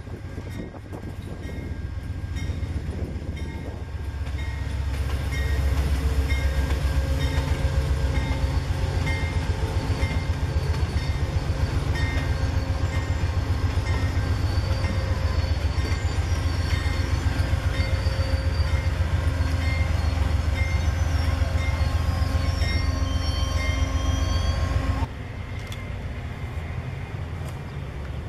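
Amtrak passenger train behind a GE Genesis diesel locomotive passing at speed. The locomotive and wheels on the rails grow loud about four to five seconds in, then the passenger cars go by with a steady, fast rhythmic clatter. Near the end the sound drops suddenly to a quieter train rumble.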